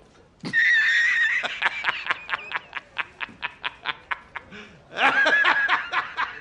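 A person laughing high-pitched: a held squeal, then a run of quick breathy pulses about five a second that tail off. A second squeal-and-pulse burst comes about five seconds in.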